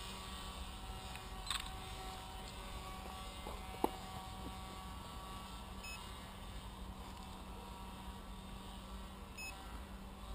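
Distant steady hum of a radio-controlled model paramotor's Hacker electric motor and propeller in flight, its higher whine fading about halfway through. Two short sharp clicks, the louder about four seconds in.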